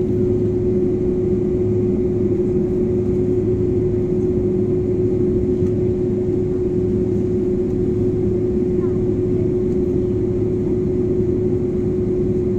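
Airliner cabin noise: the jet engines running steadily, with a constant mid-pitched tone over a low hum and a rushing hiss.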